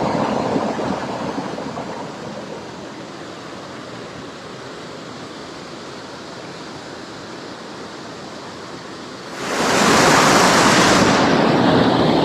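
Steady rush of water noise that eases off over the first couple of seconds, then turns suddenly loud again about nine seconds in.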